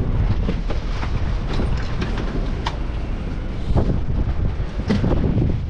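Low rumble of an idling bus, with wind on the microphone and scattered knocks and clatter of suitcases being stowed in its luggage hold.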